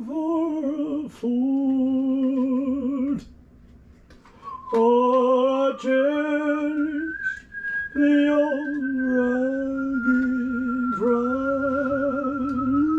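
A lone voice singing a slow hymn melody without words, in long held, wavering notes. The phrases break off for about a second and a half a little after three seconds in, then carry on.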